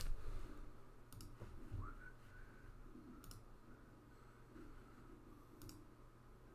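Faint clicking at a computer desk: three short clusters of sharp clicks about two seconds apart, after a low thump at the very start. A faint short rising tone comes in just before two seconds.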